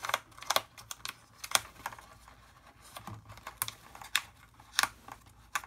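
Cardstock being bent and rubbed by fingers as the scalloped paper edges are curled up: about ten sharp, irregularly spaced crackles and ticks.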